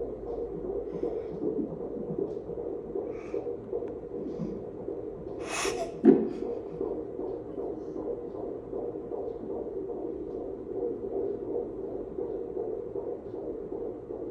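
Unborn baby's heartbeat playing steadily through an ultrasound machine's speaker. About six seconds in, a brief loud rush of noise rises over it.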